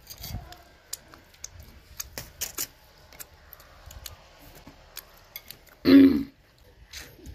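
Scattered light clicks and clinks of tableware and food being handled at a meal table, then one short, loud vocal cry about six seconds in.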